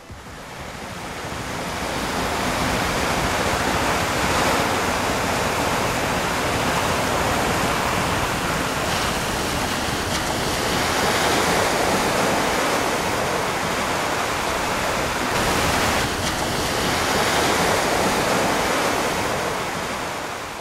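Sea surf against a rocky shore: a steady rushing that swells and eases. It fades in over the first couple of seconds and fades out near the end.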